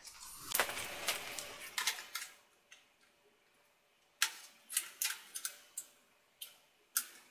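Scattered light plastic clicks and taps from a laptop keyboard being handled and fitted onto the palmrest, with a quiet stretch in the middle.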